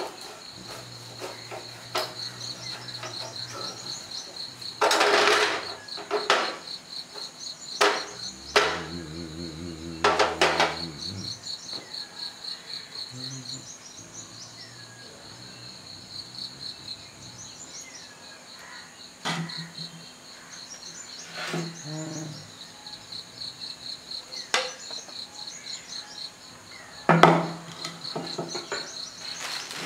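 Insects chirping steadily in a high, pulsing drone, with several sharp knocks and clatters, the loudest near the end.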